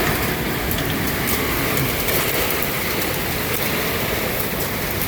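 Heavy thunderstorm rain pouring down steadily, with scattered sharp ticks of the first hail starting to hit.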